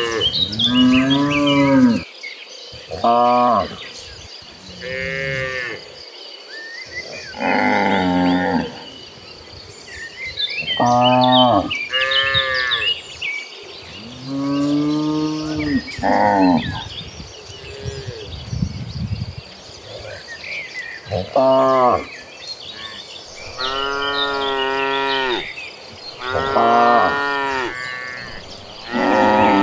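A herd of cattle mooing, one cow after another, about a dozen calls of differing pitch, some short and some long and drawn out.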